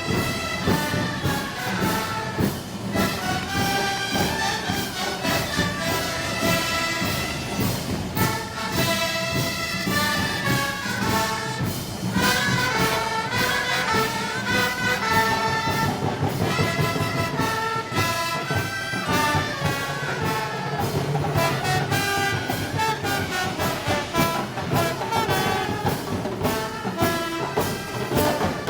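A brass band playing festival music, trumpets and trombones carrying the melody over a steady percussion beat.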